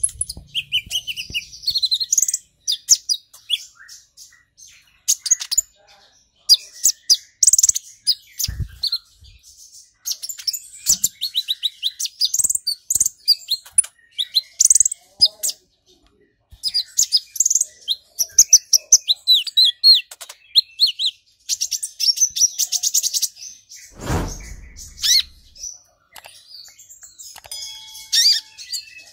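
Male purple-throated sunbird singing a fast, high, twittering song of rapid chirps and trills. About four-fifths of the way through there is a single thump.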